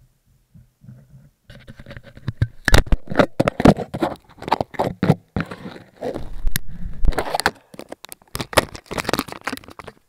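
Snow crunching and scraping right against the camera, with irregular thumps, starting about a second and a half in: a rider who has just crashed moving about in deep snow.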